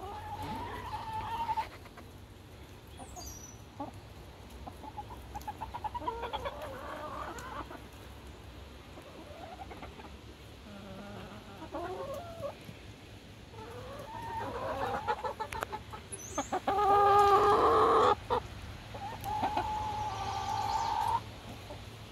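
Backyard hens clucking and calling as they feed: soft scattered clucks, with a few longer held calls, the loudest about three-quarters of the way through.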